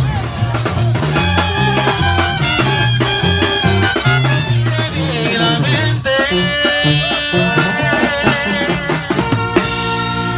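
Upbeat Latin dance music with drums, a bass line that steps from note to note, and held melody notes over them, playing loudly throughout.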